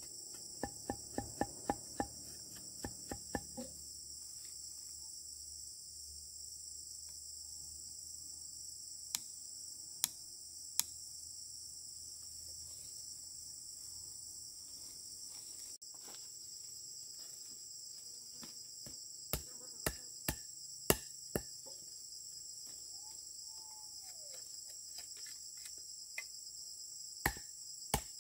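A steady, high insect chorus of crickets or cicadas, with sharp knocks over it: a quick run of about a dozen in the first few seconds, then single knocks now and then.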